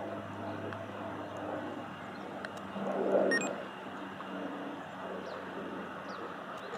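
Airbus A330-200's General Electric CF6 jet engines running at low power as the airliner rolls on the ground, a steady rumble and hiss. About three seconds in the sound swells briefly, and a short high beep comes just after.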